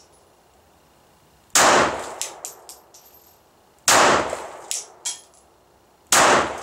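Three single shots from a Glock 42 .380 ACP pistol, about two and a half seconds apart: slow, deliberate aimed fire. Each shot echoes briefly and is followed by a few light ticks and a short high ring.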